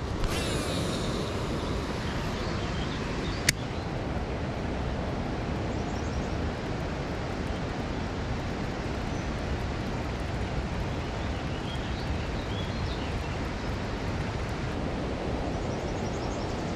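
Steady roar of a waterfall's rushing water, with a single sharp click about three and a half seconds in.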